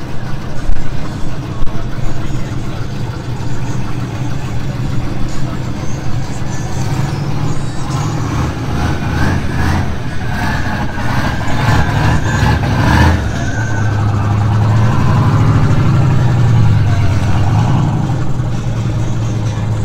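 Fox-body Mustang engines idling with a steady low rumble. About fourteen seconds in, one engine grows louder and its note rises and falls as a car pulls away.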